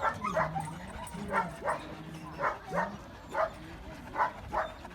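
A dog giving short, sharp yips, mostly in pairs, about ten in all.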